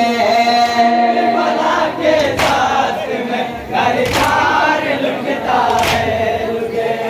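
A crowd of men chanting a Shia mourning lament (noha) in unison, with a loud collective strike about every second and three-quarters, typical of bare-handed matam chest-beating in time with the chant.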